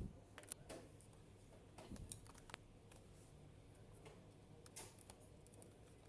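Faint, irregular small clicks and taps from hands and small tools working on a laptop, over near-silent room tone.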